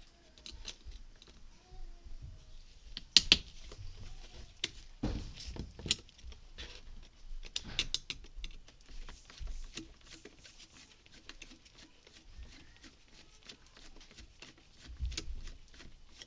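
Scattered small clicks and taps of a screwdriver and metal parts being handled as an electric starter motor is taken apart, with one sharper click about three seconds in.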